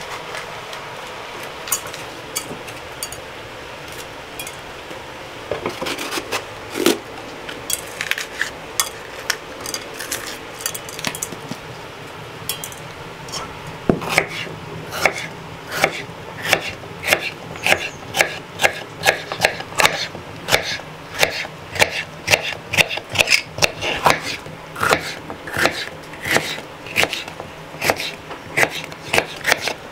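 Kitchen knife slicing red bell peppers on a wooden cutting board: the blade knocks on the board, scattered at first, then in a quick steady run from about halfway.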